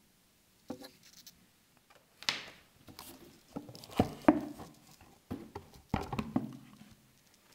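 Hands handling a watch presentation box on a table: scraping and rustling with several sharp knocks and clicks, the loudest about four seconds in.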